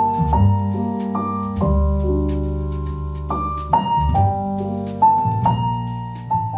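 Background piano music: chords and melody notes struck every half second or so and left to ring and fade.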